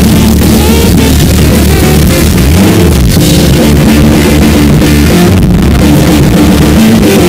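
Live band music turned up to a deliberately overdriven, distorted loudness: trombone playing over a drum kit and a busy rhythm section.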